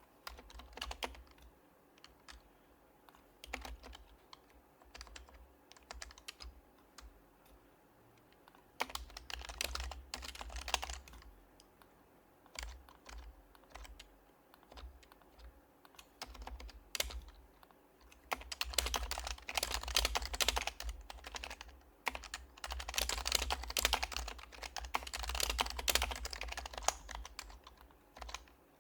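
Typing on an HHKB Professional Hybrid Type-S keyboard, its silenced Topre capacitive keys clicking in bursts of quick keystrokes with short pauses between. The longest, densest runs come in the last ten seconds.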